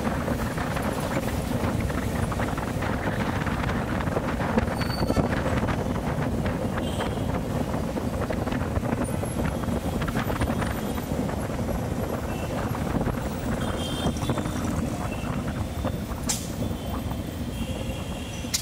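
Bajaj CT100 motorcycle on the move: its small single-cylinder four-stroke engine running steadily under road and wind noise, with city traffic around.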